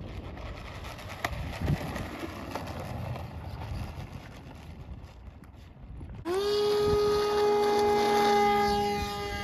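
Wind buffeting the microphone, with a few light knocks. About six seconds in, a Parkzone A-5 Icon electric model plane's motor and propeller spin up abruptly into a loud, steady whine, rising slightly in pitch at first and then holding.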